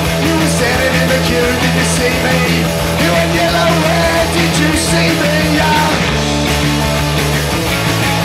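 Live punk rock band playing loud, with distorted electric guitars and a drum kit with crashing cymbals.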